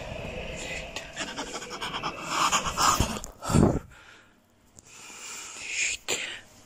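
A woman panting and breathing hard right at a phone's microphone in uneven gasps, with a lull of about a second past the middle.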